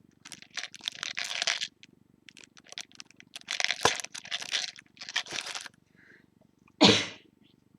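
Plastic packaging crinkling and rustling in several bouts as a small packaged item is handled, with a short, louder bump near the end.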